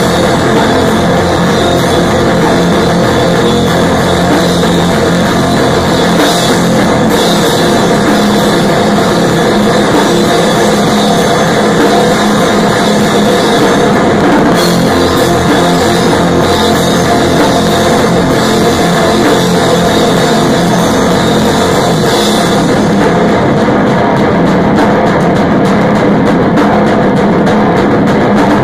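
Loud rock music with a drum kit, cymbals and guitar, playing steadily without a break.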